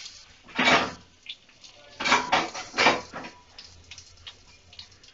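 Cumin, mustard seeds and dried red chillies spluttering in hot oil in a kadhai for a tempering: irregular sharp crackles and short bursts of spitting, a few of them much louder than the rest.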